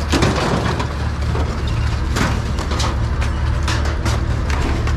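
Shred scrap metal clattering and crashing as it is unloaded onto the pile, many irregular impacts over the steady running of a truck engine.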